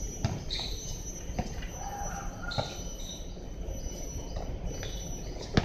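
Basketball knocks on an outdoor court: a few single thuds about a second apart, then a sharper, louder bang near the end.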